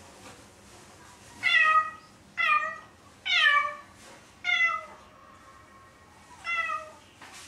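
Domestic cat meowing five times, short calls each falling in pitch at the end.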